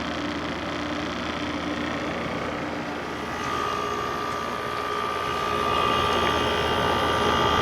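LG LW6016R 6000 BTU window air conditioner running in cooling mode, its compressor and fan going steadily. A steady high whine comes in about three and a half seconds in, and the sound grows a little louder toward the end.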